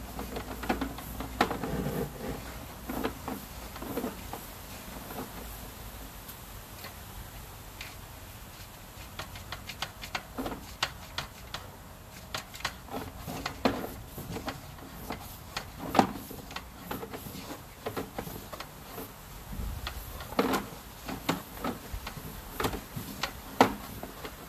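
Irregular clicks and knocks as a sewer inspection camera's push cable is fed down a sewer line, the ticking coming thicker in the second half.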